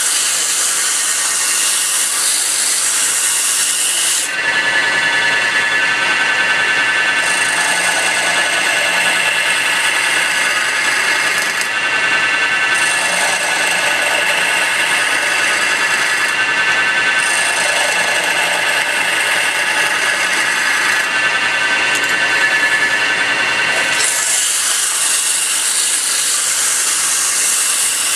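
Wood lathe spinning a wooden spindle: sandpaper held against the turning wood hisses for the first few seconds and again in the last few. In between, a turning chisel cuts along the spinning wood with a steady high whine that breaks off and resumes several times.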